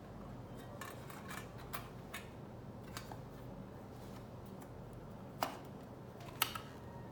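Small clicks and taps of computer parts being handled, with two sharper clicks near the end, over a steady low hum.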